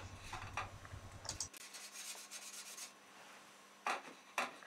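Paintbrush rubbing and scratching against a painting canvas in short strokes, the two sharpest near the end.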